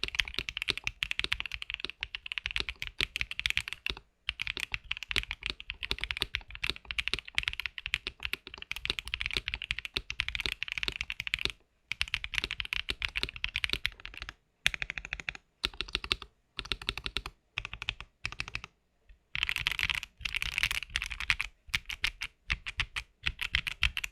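Mechanical keyboard with full-POM Akko POM Pink switches being typed on: fast runs of keystrokes with brief pauses, a stretch of shorter separated bursts in the middle, then fast typing again that stops abruptly.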